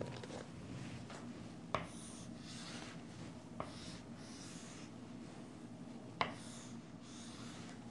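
Chalk drawing lines on a chalkboard: faint scratchy strokes, with three sharp taps where the chalk meets the board.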